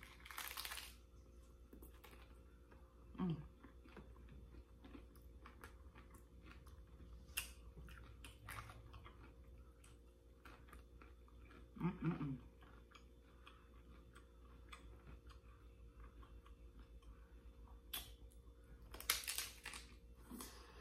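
Close-up chewing of a crunchy hard-shell taco: brittle bites crunching, with a busy run of small clicks and smacks from the mouth. A few short, falling 'mm' hums from the eater's voice come in at about 3 s, 12 s and near the end.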